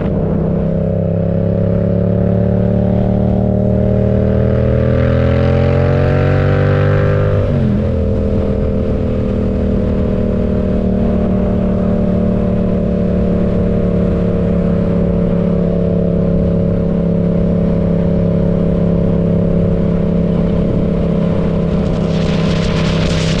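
Yamaha MT-07's parallel-twin engine running through an aftermarket M4 exhaust under way: it pulls up through a gear with the pitch slowly rising, drops in pitch at an upshift about eight seconds in, then holds a steady cruise. A brief hiss comes near the end.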